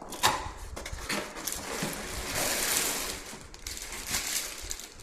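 Packaging being handled and unwrapped to free a wall clock: irregular rustling and crackling with scattered small clicks, and a louder, longer rustle about two and a half seconds in.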